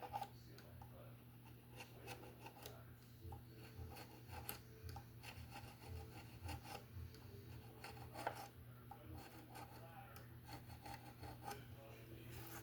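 Steel wool rubbed by hand on the mandolin in short, irregular scratchy strokes, faint, over a steady low electrical hum.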